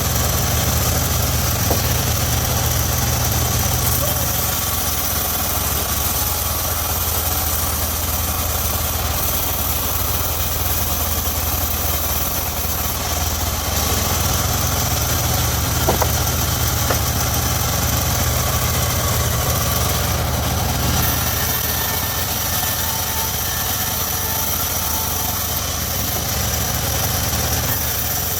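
Engine driving a homemade circular-saw sawmill, running steadily at a constant speed.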